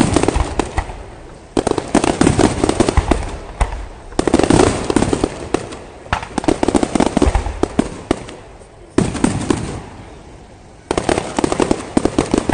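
Aerial fireworks display: volleys of shells bursting in dense rapid strings of bangs and crackles, each volley a second or two long with short pauses between, about six in all.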